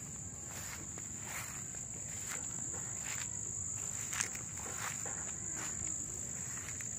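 Steady high-pitched insect drone, with scattered brief rustles and taps and one sharper tap about four seconds in.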